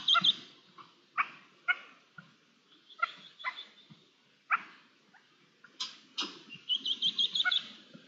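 Red-legged partridges calling: short, harsh notes every second or so, with rapid chattering runs of repeated notes at the start and again near the end.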